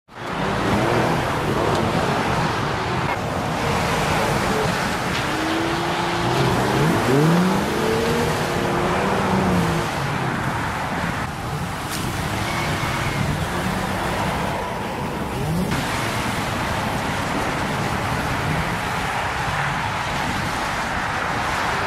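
Nissan 350Z's 3.5-litre V6 revving up and down several times, mostly about five to ten seconds in, over a steady rushing noise, as the car is stuck in mud and slush and tries to drive out.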